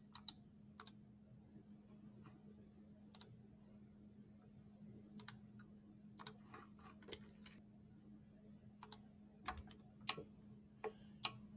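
Faint, irregular clicks of a computer mouse and keyboard over a low steady hum.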